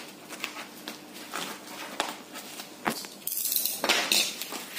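Plastic parcel wrapping crinkling and crackling as a utility knife slits it open, with a louder stretch of rustling about three seconds in as the wrapping is handled.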